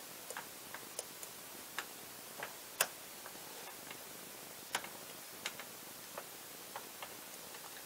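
Precision screwdriver turning a small screw in a camera lens's bayonet mount: about a dozen light, irregular ticks and clicks of the tip and screw, one sharper click about three seconds in.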